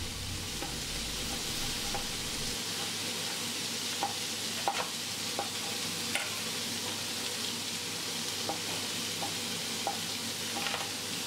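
Steady sizzling of sliced peppers, onions and mushrooms sautéing in a pan over high heat, with a few light taps of a knife on a plastic cutting board as seared steak is sliced.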